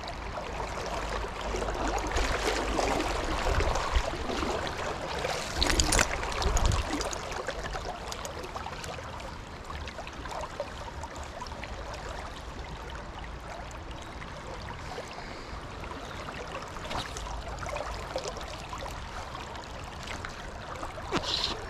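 River current rushing and burbling steadily, a little louder in the first several seconds, with brief sharp sounds around four and six seconds in.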